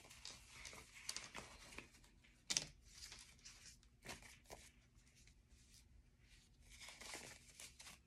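Paper banknotes being handled and flipped while they are counted: faint rustling of paper with a few crisp snaps, the sharpest about two and a half seconds in.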